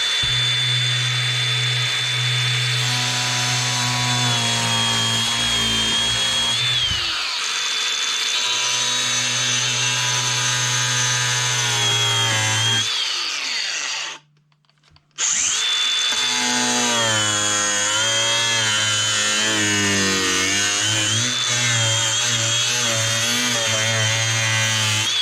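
Handheld power tool running and cutting into the plastic housing of a toy oven, its whine sagging in pitch again and again as it bites. It stops for about a second partway through, then starts up again.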